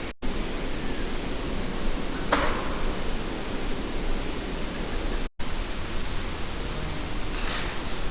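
Steady hiss of a heavily amplified night-time forest recording, with faint high chirps in the first half. Two short sharp sounds break through, one about two seconds in and another near the end, and the hiss cuts out briefly twice.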